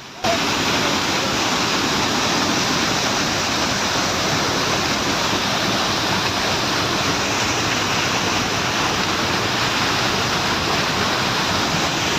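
Loud, steady rush of a waterfall's falling water, cutting in suddenly just after the start.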